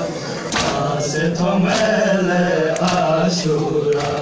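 Men's voices chanting a Balti noha in unison, a mourning lament, with sharp hand strikes on bare chests (matam) landing about once a second.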